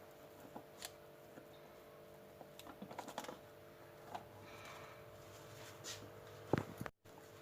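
Faint taps and clicks of a knife and server against a dish while a slice of cheesecake is cut and lifted out, over a steady low hum. A louder knock comes about six and a half seconds in.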